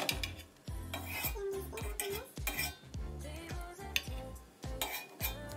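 A metal spoon clinking and scraping against a small pot and a ceramic plate as blanched long beans are scooped out, in many quick clicks, with background music.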